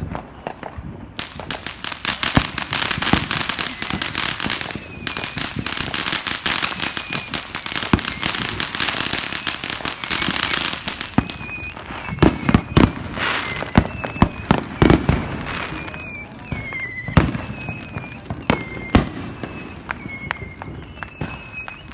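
Fireworks going off: about ten seconds of dense, rapid crackling starting a second in, then separate sharp bangs and deeper booms every second or so.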